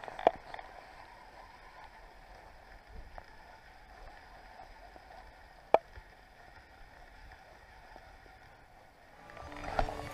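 Faint lapping water around a small boat, broken by a few sharp clicks from a baitcasting reel and tackle as a spinnerbait is cast and reeled in, one about a second in and a louder one near the middle.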